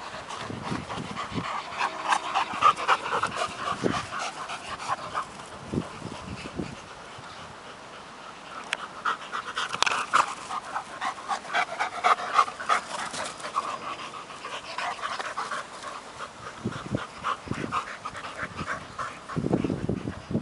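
Two dogs, a Working Mastiff pup and a bull 'n terrier, panting in quick, rapid bursts of breath while running. The panting is louder around two to four seconds in and again around ten seconds in.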